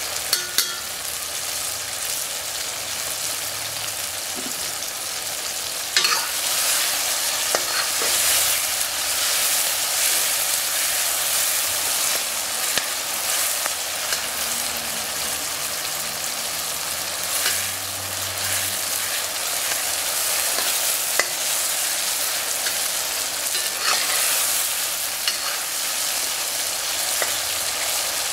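Sliced peppers, tomato and sausage sizzling in oil in a wok, stirred with a metal spoon that scrapes the pan and clicks against it now and then.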